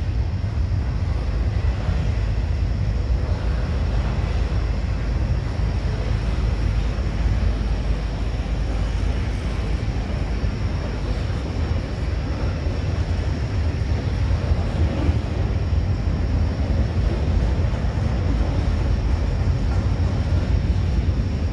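Double-stack intermodal freight train passing, its container cars rolling by in a steady rumble.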